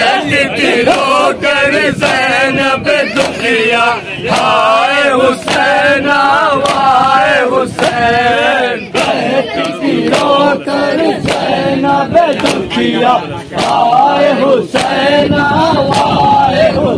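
A crowd of men chanting a noha, a Muharram lament, in unison. Sharp, evenly spaced slaps of matam (hands beating on chests) keep the beat, about one every 0.7 seconds.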